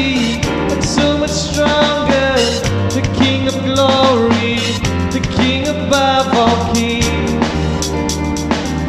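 Pre-recorded worship band music: a melodic line over drums and a steady bass.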